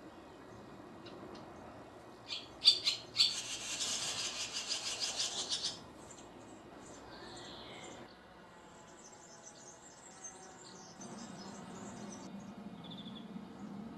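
Barn swallow twittering song: a loud burst of rapid high chatter ending in a fast rattle, a few seconds in, followed by sparser, fainter high chirps.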